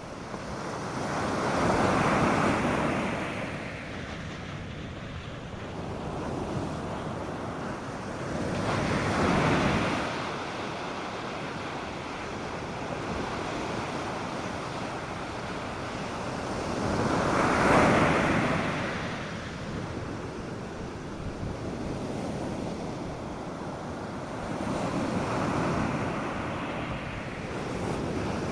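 North Sea surf on a sandy beach. Waves break and wash in about every seven to eight seconds, four times in all, over a steady hiss of water. The loudest wave comes a little past halfway.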